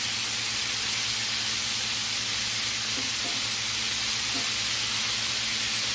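Flour-battered chicken wings deep-frying in hot oil in a cast-iron skillet: a steady sizzle.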